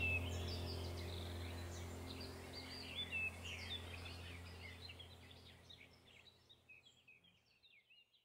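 Birdsong soundtrack: many short, quick chirps over a low steady hum, the whole fading out gradually to silence by the end.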